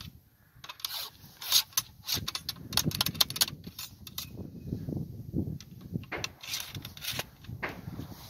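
A metal ramrod working in the barrel of a Brown Bess flintlock musket as the charge is rammed home: a quick run of sharp metallic clicks and scraping of rod against barrel, with handling rubs.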